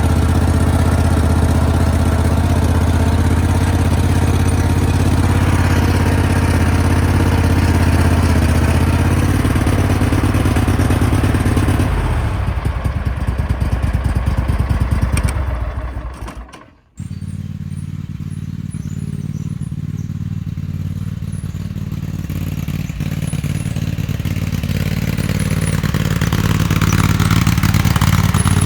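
The 18 hp Kohler Command engine of a Cub Cadet 1861 garden tractor runs steadily. About twelve seconds in it slows, its separate firing pulses becoming audible as it winds down and stops. After a brief break the engine is heard running again, getting louder toward the end.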